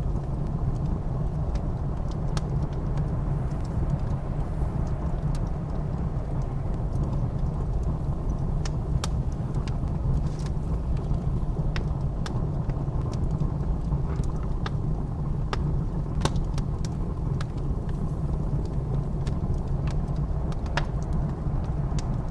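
Fireplace wood fire crackling with scattered sharp pops, over the steady low rumble of blizzard wind.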